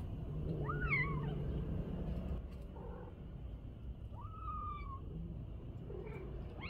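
Cat meowing: a meow that rises and falls about a second in, a longer, steadier meow around four seconds, and another starting near the end.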